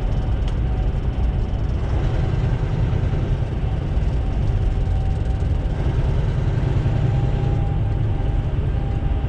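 Steady low rumble of engine and road noise inside a semi truck's cab, cruising on the highway at about 55 mph.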